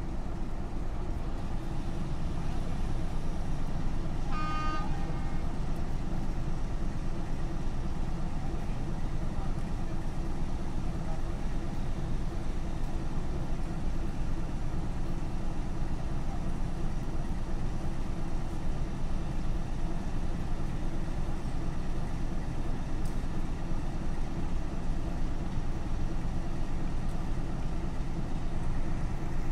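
Steady low rumble of a diesel locomotive engine running, with a short, high horn toot about four and a half seconds in.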